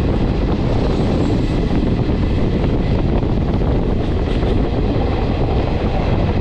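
Indian Railways passenger train moving, a steady rumble of wheels on rails with wind rush, heard from an open coach door.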